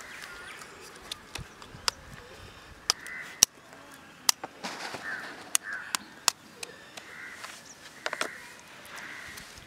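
Crows cawing several times, with sharp clicks scattered between the calls as a knife tip taps and picks at a boiled egg's shell.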